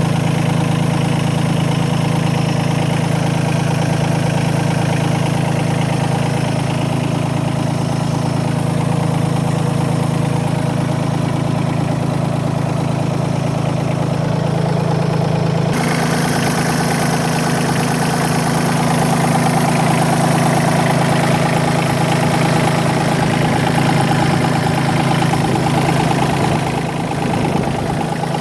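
Bobcat B250 compact loader backhoe's diesel engine running steadily. A little past halfway its sound changes abruptly and then runs slightly louder.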